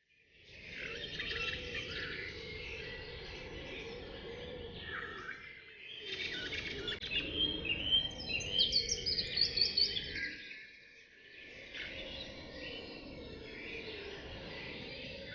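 Forest birds chirping and singing, several calls overlapping over a steady low background rush. Partway through comes a loud run of quick, sharp chirps before the calls thin out again.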